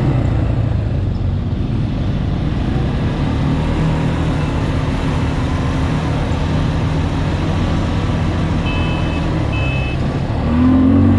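ATV engine running steadily under way, with a low rumble and rushing wind and road noise. Two short high beeps sound a little before the end, and the sound grows louder near the end.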